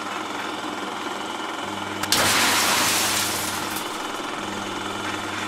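Channel-intro sound effect: a steady noisy drone with a low hum, swelling into a louder rush of noise about two seconds in that eases off over the following second or so.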